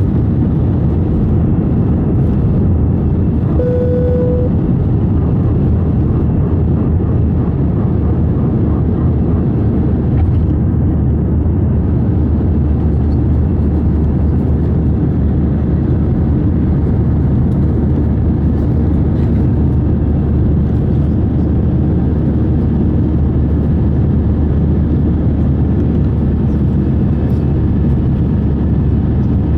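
Steady jet engine and airflow noise inside the cabin of an Airbus A320 airliner, with a short single tone about four seconds in.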